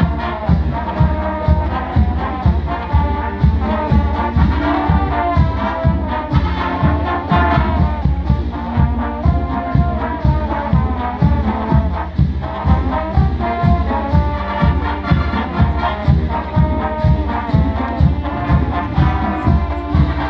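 College marching band playing: brass melody over a steady drum beat, about two beats a second.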